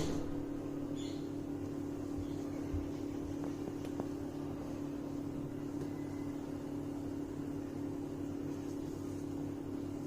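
Steady machine hum, as of a small motor running, with a few faint light ticks near the start and a small click about four seconds in.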